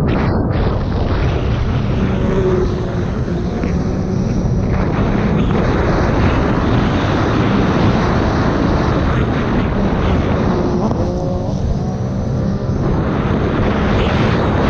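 Sea-Doo RXP-X personal watercraft at racing speed: its supercharged three-cylinder engine running hard under a heavy rush of wind and water spray on the onboard camera. Twice the engine note eases briefly, about two and a half and eleven seconds in.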